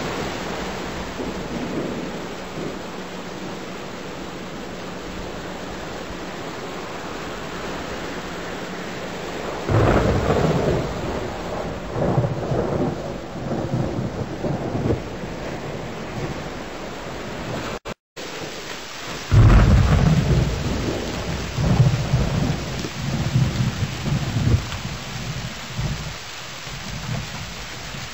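Thunderstorm: steady heavy rain with rolling thunder. A long rumble begins about a third of the way in. After a brief gap in the sound, a louder peal follows and rumbles on in waves.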